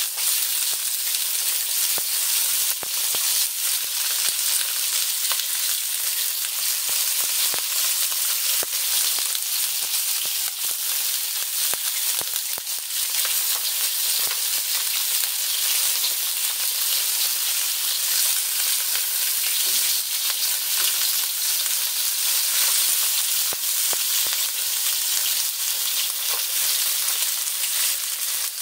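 Stuffed green bell pepper pieces filled with minced fish paste sizzling steadily in hot oil in a wok, with scattered crackles as they are turned with tongs to brown evenly.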